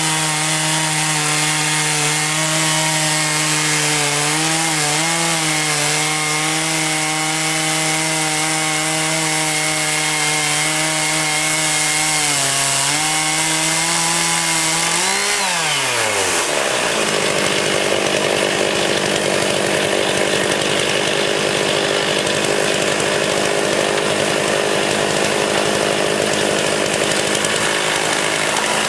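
Engine-driven sawmill running and sawing wood: the engine holds a steady pitch with two brief dips under load. About 15 seconds in it rises briefly and then winds steeply down, and a lower, rougher running sound continues.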